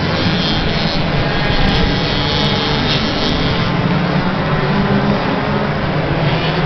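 Racing moped and scooter engines running hard at high revs, a steady continuous engine noise that does not let up.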